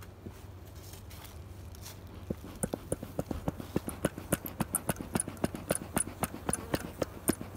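Bee smoker being pumped over an open hive: a rapid run of sharp clicks and puffs, about four a second, starting about two seconds in, over a faint steady low hum.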